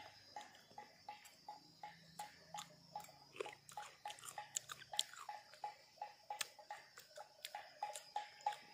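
A person chewing slices of unripe green nhót (Elaeagnus fruit), with a faint, even chewing rhythm of about three clicks a second.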